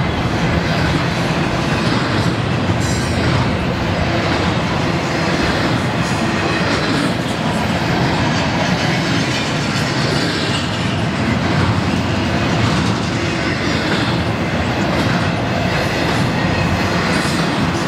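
Double-stack intermodal well cars of a freight train rolling past close by: steel wheels on the rails making a loud, steady rolling rumble.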